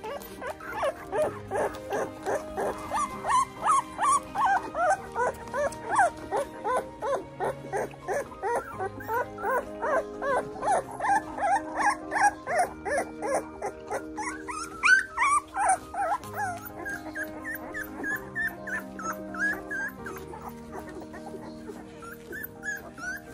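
Newborn English Cream Golden Retriever puppies squeaking and whimpering as they crawl to nurse: many short, high squeals a second, thinning out after about two-thirds of the way through. Soft background music with long held notes plays underneath.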